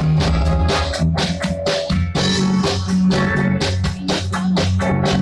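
Rock band playing an instrumental passage of a cover song: electric guitar, bass and drum kit with a steady beat.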